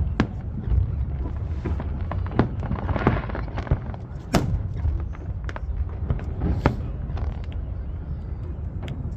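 Aerial fireworks going off: a run of sharp bangs and pops at uneven spacing, the loudest about four and a half seconds in, over a continuous low rumble.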